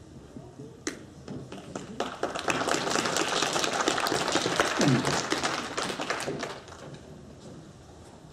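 A small audience clapping: a single clap, then applause that swells about two seconds in and dies away a few seconds later.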